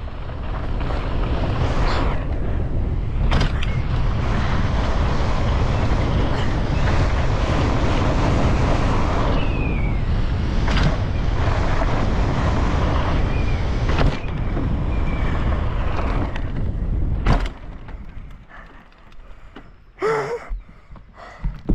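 Wind buffeting the microphone and knobby mountain bike tyres rolling over a dirt jump trail at speed, with a few sharp knocks along the way. The rumble drops off sharply about four seconds from the end as the bike slows.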